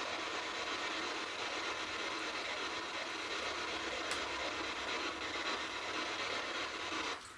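Steady hiss of static-like noise, with a faint click about four seconds in; near the end the hiss drops out briefly and a sharp click follows.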